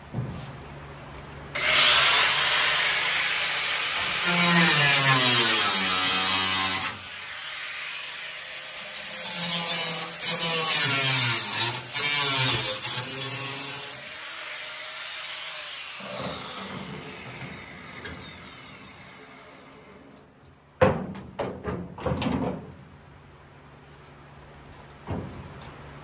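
Corded angle grinder grinding the cut edge of a steel pickup-bed side in two long bursts, its pitch sagging and rising as it bites, then winding down over several seconds. A few sharp knocks follow near the end.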